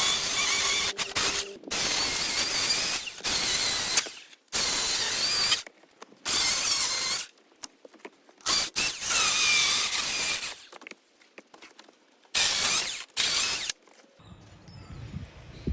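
Milwaukee M18 cordless chainsaw run in repeated short trigger bursts while cutting small branches, the chain's whine wavering under load; about nine bursts with quiet gaps, quieter and shorter near the end.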